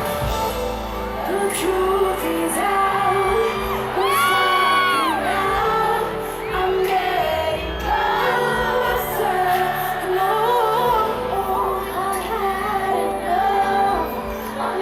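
Female pop vocal group singing live over the band's backing music, heard through the echo of a large concert hall, with a held, sliding vocal note about four seconds in and some whoops from the crowd.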